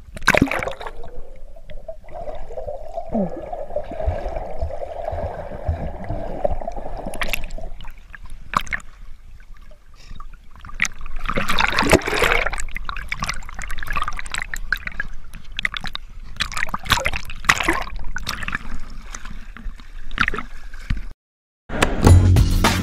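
Lake water sloshing and gurgling around a waterproof action camera at the surface, dipping underwater, with a louder rush of bubbling about twelve seconds in. A steady hum runs through the first seven seconds or so. The water sound cuts out near the end and a buzzing outro jingle begins.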